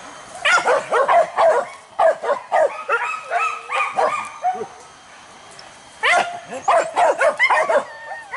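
Dogs barking and yelping in quick runs, one in the first half and another about six seconds in. These are pig-hunting dogs on a wild boar chase.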